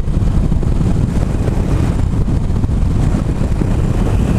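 Wind rushing over the microphone of a motorcycle rider at road speed, with the Harley-Davidson Iron 883's air-cooled V-twin running underneath, steady throughout.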